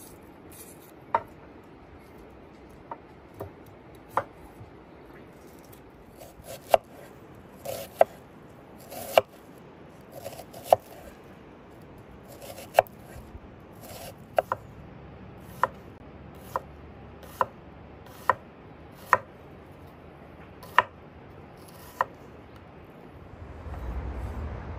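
Kitchen knife chopping an onion on a wooden cutting board: a series of sharp knocks, roughly one a second at an uneven pace, with softer slicing strokes between them. A low rumble comes in near the end.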